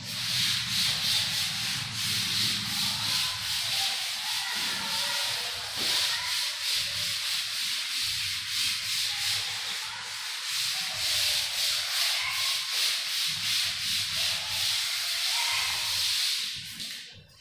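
A green chalkboard being wiped clean with a duster: quick back-and-forth rubbing strokes, about three a second, that stop shortly before the end.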